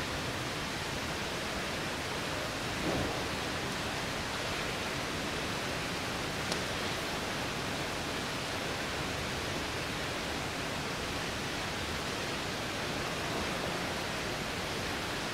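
Steady, even rushing noise, with a soft low bump about three seconds in and a faint tick a few seconds later.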